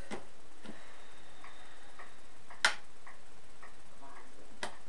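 Clicking from a homemade air-raid siren timer controller under test on 12 volts: short clicks about twice a second, with one much louder click a little past halfway.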